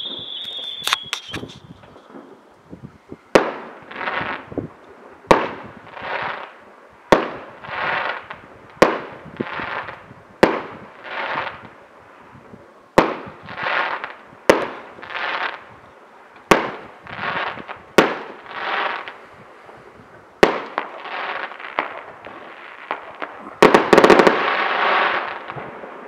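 Fireworks display: a high whistle fades out at the start, then aerial shells burst one after another, a sharp bang every second and a half to two seconds, each trailing off over about a second. A louder, denser burst comes near the end.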